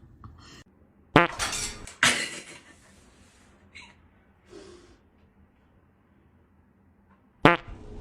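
Hard objects clattering and crashing: two loud crashes about a second apart, each trailing off in a rattle, and another sharp crash near the end.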